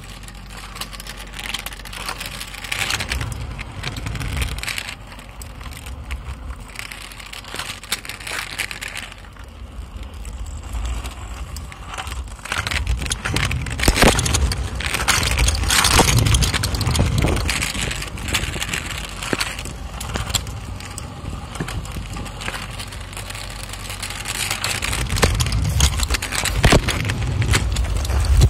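Kick scooter's small hard wheels rolling over rough asphalt: a steady rumble full of clicks and rattles. It grows louder about halfway through and again near the end.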